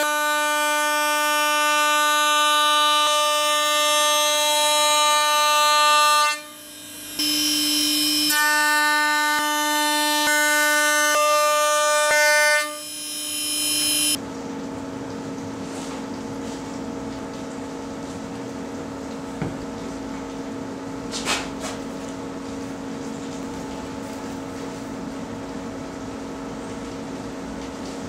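CNC router spindle milling a wood blank with an end mill: a loud, steady, high whine with many overtones that dips briefly twice. Then a quieter steady machine hum with a couple of sharp ticks.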